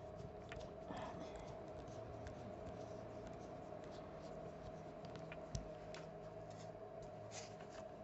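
Faint small clicks and scrapes of a precision screwdriver driving tiny screws into a small electronic device's housing, with a light knock about five and a half seconds in. A steady hum runs underneath.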